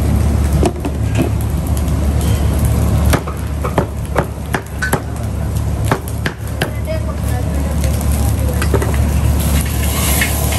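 A knife chopping food on a wooden chopping block: irregular sharp knocks, thickest in the first two-thirds, over a steady low rumble.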